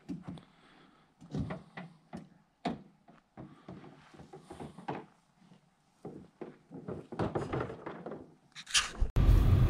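A series of irregular knocks and thuds, a few a second, with a short hiss near the end. A little after 9 s it cuts abruptly to a loud, steady low vehicle rumble.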